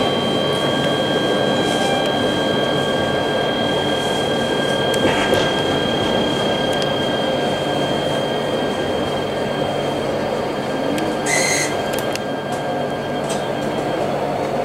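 Alstom Citadis tram running on street track, heard from inside behind the driver's cab: steady rolling noise with a high electric motor whine that fades out about ten seconds in, and a brief high wheel squeal about a second later.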